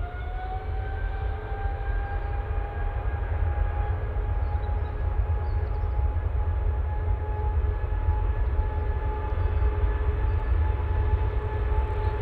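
Boeing 777-200ER's twin turbofan engines at takeoff power during the takeoff roll. A steady whine rises slightly in pitch over the first couple of seconds and then holds, over a heavy low rumble that grows slowly louder.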